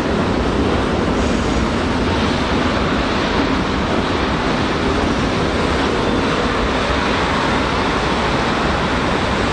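Freight train rolling past on the far tracks: a steady, even rumble and rush of wagons running along the rails.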